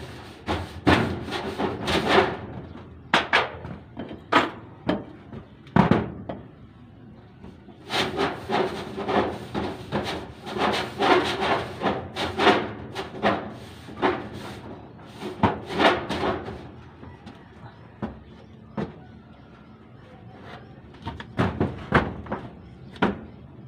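Paintbrush scraping across a corrugated metal roof sheet in quick repeated strokes, coming in three runs, with a few single knocks from the thin metal in between.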